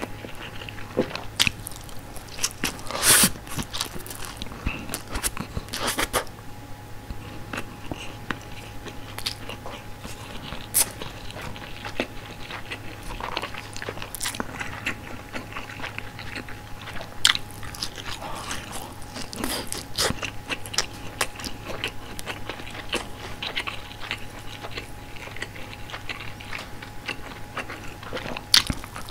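Close-miked eating of glazed frankfurter sausages and white rice: wet chewing broken by sharp, crunchy bites every few seconds, over a faint steady hum.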